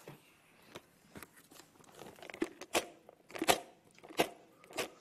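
A run of irregular sharp clicks and knocks as a handheld vortex cannon is handled and fired, sparse at first and growing busier and louder from about two seconds in.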